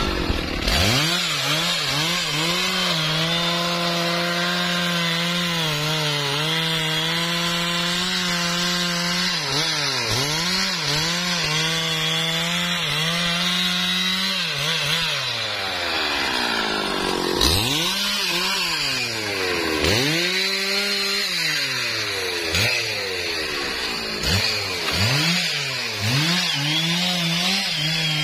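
Stihl MS 660 two-stroke chainsaw revving up about a second in, then running at high revs as it cuts through a trembesi log. The engine pitch repeatedly dips under load and picks back up, with one longer falling drop about halfway through.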